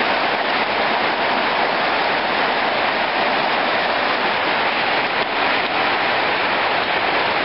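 Heavy rain pouring down onto a wet concrete yard, a steady even hiss.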